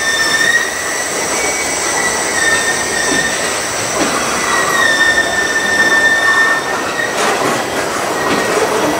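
Empty freight flatcars rolling past close by, a steady rumble of steel wheels on rail with a high-pitched squeal from the wheels that fades in and out. A few sharp clanks come near the end.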